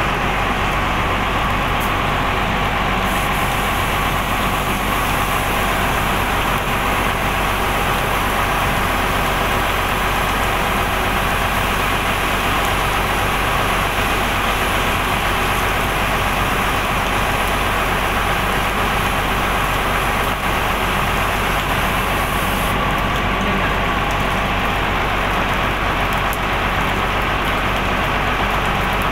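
A large vehicle engine idling steadily, a constant hum under a dense hiss, with an extra high hiss from about three seconds in until a few seconds before the end.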